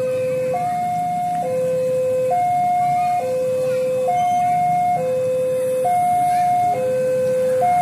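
Railway level-crossing warning alarm sounding a steady two-tone hi-lo signal, switching between a lower and a higher tone about every second, warning that a train is approaching.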